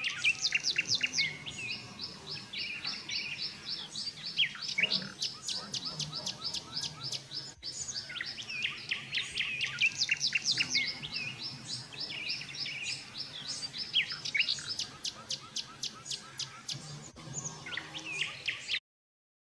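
Songbirds chirping and singing in a dense chorus of rapid, high-pitched chirps and trills, several calls overlapping. The sound cuts off suddenly near the end.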